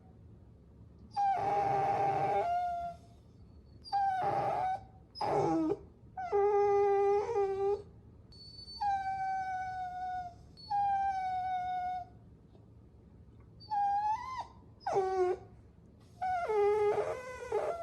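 Puppy whining: a string of about nine high-pitched whimpering cries with short pauses between them. Most hold a steady pitch or sag slightly, one drops sharply, and a couple rise and then fall.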